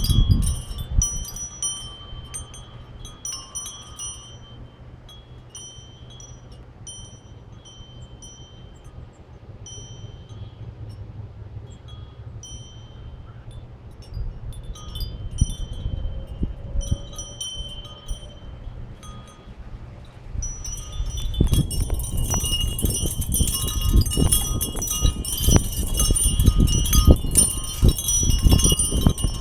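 Wind chimes ringing in the wind: a few scattered strikes at first, then about two-thirds of the way in a gust sets them ringing rapidly and continuously. A low wind rumble on the microphone grows louder with the gust.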